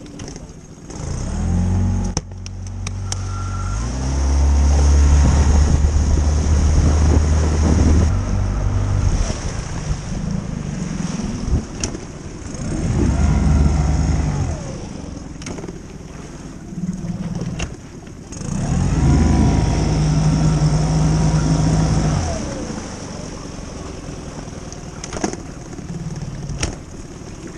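Small outboard motor on an inflatable boat running, revved up in three spells with its pitch rising and falling, and dropping back to a low idle in between while the boat is manoeuvred at slow speed.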